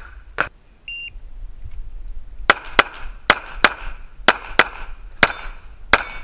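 A competition shot timer gives one short beep to start the stage. About a second and a half later a handgun fires eight shots, mostly in quick pairs, as the shooter works through the targets. A single sharp knock comes just before the beep.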